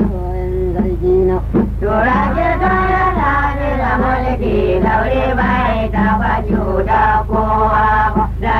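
Traditional Hausa praise song: a singer chanting melodic lines over a steady accompaniment.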